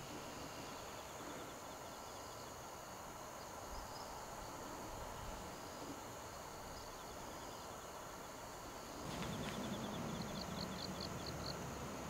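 Insects trilling in high, finely pulsed runs that come and go. A low rumble rises about nine seconds in, and a short run of high chirps comes near the end.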